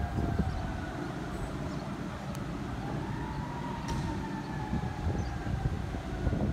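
Fire siren wailing. Its pitch slides slowly down, rises once about three seconds in, then slides slowly down again, over a steady low rumble.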